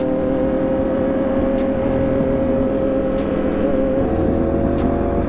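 Ducati 848's V-twin engine running at a steady cruising speed, heard from the rider's seat, holding an even note.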